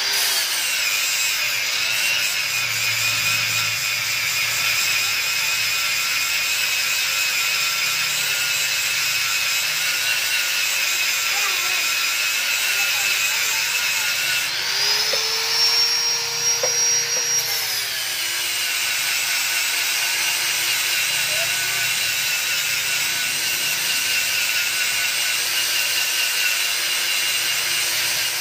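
Angle grinder running steadily, its disc grinding against a steel motorcycle exhaust and throwing sparks. Midway through, the motor's whine rises in pitch for a few seconds, then drops back as it bears on the metal again.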